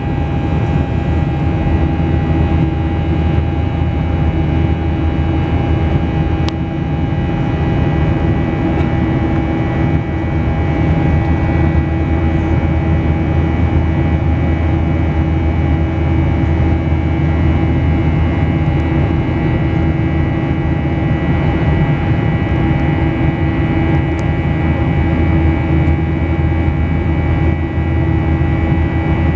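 Steady cabin noise inside a Boeing 737-700 climbing out after takeoff: its CFM56-7B turbofans and the rush of air over the fuselage, with a few constant engine tones running through the hum.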